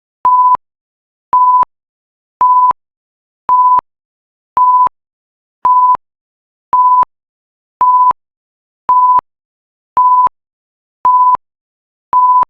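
Electronic timer alarm: short single-pitched beeps repeating evenly about once a second with silence between, signalling that the countdown has finished.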